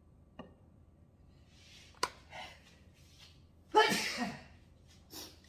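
A woman sneezes once, loudly, about four seconds in, after a sharp breath in. The sneeze comes from hay fever.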